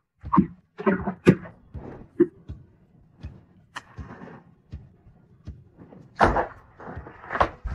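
A run of close-up handling sounds from small household objects: clicks, taps and short scraping or rustling bursts, the loudest about six seconds in.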